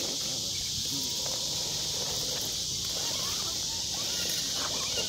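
A steady, high-pitched chorus of night insects chirring without a break, with faint voices in the distance.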